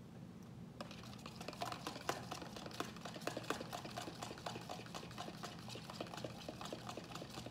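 A metal fork beating raw eggs in a plastic food container, with rapid clicks of the fork against the container's sides and bottom. The clicking starts about a second in and runs on quickly and evenly.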